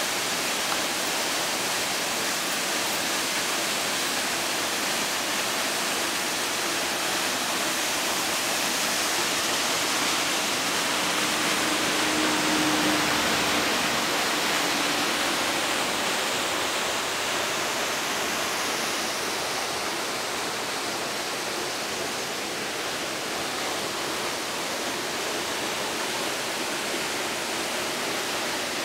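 Small waterfall pouring over boulders into a pool: a steady, unbroken rush of falling water.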